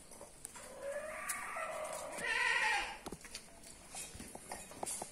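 Kodi goat kids bleating: a first call about a second in, then a louder, quavering bleat near the middle, followed by light scattered clicks and knocks.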